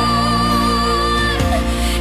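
Gospel worship song: a long held note wavering over sustained chords, the chords changing about one and a half seconds in.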